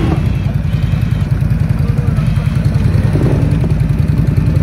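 ATV engine idling steadily, a low even rumble.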